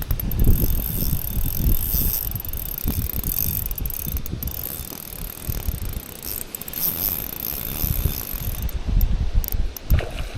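Spinning reel being cranked to retrieve a lure, its gears whirring, and the whirr breaks off near the end. Strong wind buffets the microphone with a gusty rumble underneath.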